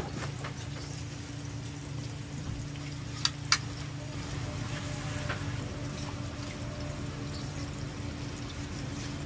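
Tteokgalbi patties sizzling on a flat-top steel griddle, over a steady low hum. A metal spatula clicks sharply against the griddle twice about three and a half seconds in.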